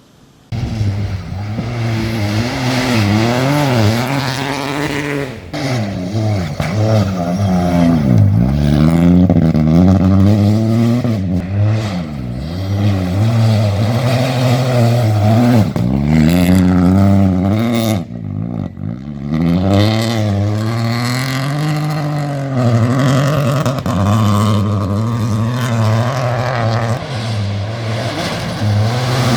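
Peugeot 208 Rally4's turbocharged 1.2-litre three-cylinder engine at full throttle. Its revs climb and fall again and again through gear changes and lifts, with a longer lift about two-thirds of the way through.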